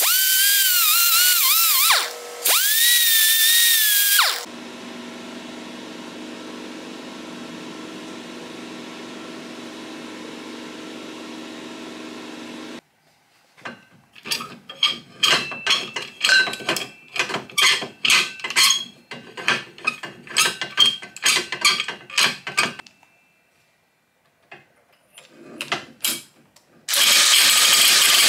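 A power tool grinds a steel socket for the first four seconds, its whine wavering in pitch, with a brief stop at about two seconds. Then comes a steady hum. After that, an old cast-iron G clamp clinks and clanks metal on metal as it is handled and its screw is worked. Near the end a cordless driver starts spinning the clamp's screw with a loud steady run.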